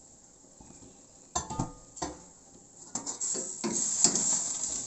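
Metal cookware clattering against a wok a few times, then a steady sizzling hiss that builds louder over the last couple of seconds as the shrimp cook in rice wine under the lid.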